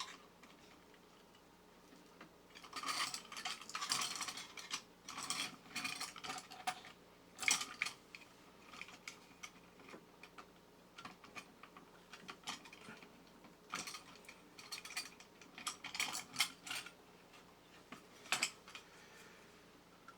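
Thin sheet-metal parts of a vintage tin toy robot clicking and scraping as they are handled and its flimsy tabs are bent, in irregular bursts of small metallic clicks.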